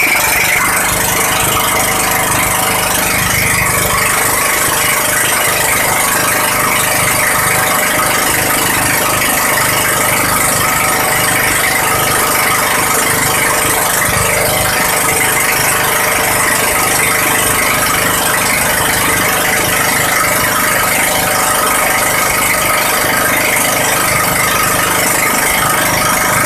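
A motor running steadily, with a rattle over it.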